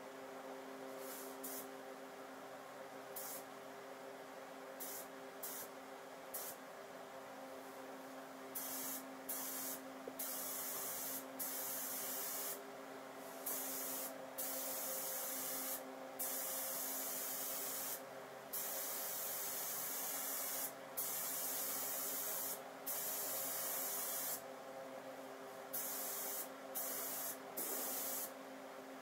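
Compressed-air paint spray gun hissing in repeated bursts, about a dozen trigger pulls of one to three seconds each, one for each pass of black epoxy sealer over plastic bumper covers. A steady low hum runs underneath.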